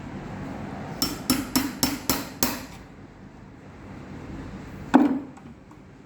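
Hammer tapping on metal parts of a Toyota ignition lock cylinder during repair: six quick sharp taps, about four a second, then one louder knock near the end.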